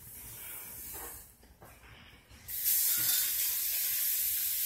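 Steady hiss of water running from a kitchen tap into the sink, starting suddenly about two and a half seconds in, after a quiet stretch with a few faint knocks.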